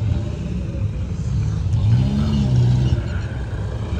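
A 4x4's engine runs with a low rumble. About halfway through it revs up briefly and eases back down.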